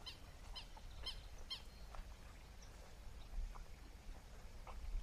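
A bird calling faintly: four short, high notes about half a second apart in the first two seconds, then a few fainter scattered notes, over a low rumble.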